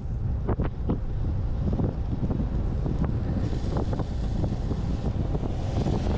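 Wind buffeting a GoPro Hero8 Black's microphone on a road bike's fast downhill run, over a low, steady rumble, with scattered small knocks and clicks.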